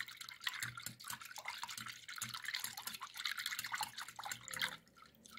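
Wire whisk beating eggs and water in a glass dish: a fast run of wet splashing strokes that stops about five seconds in.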